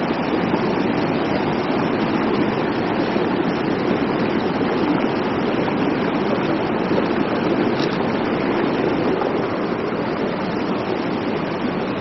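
Mountain stream of the upper Triberg Waterfalls cascading down between boulders, a steady rushing of water with no change in level.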